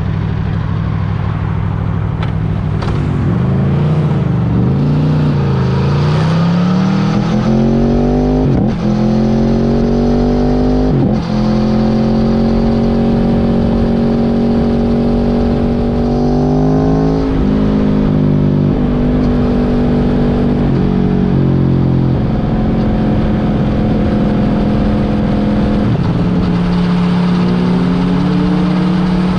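A 2018 Aprilia Tuono's 65-degree V4 engine pulling through the gears on the road. The pitch climbs, then drops with a short dip in level at each of several upshifts, and it runs steadily between them.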